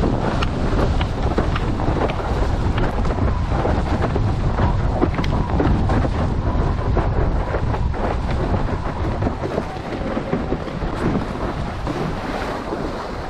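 Wind buffeting a GoPro microphone over water rushing past a windsurf board under sail, with frequent short splashes.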